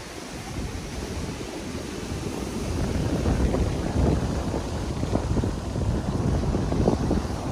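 Wind buffeting the microphone over the wash of surf breaking on the reef, a low, gusty rumble that swells over the first few seconds.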